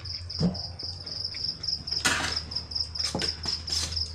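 An insect chirping steadily in a fast, even pulse, about five chirps a second, over a steady low hum. Several short spoon scrapes and knocks on the metal tray and plates, the loudest about two seconds in.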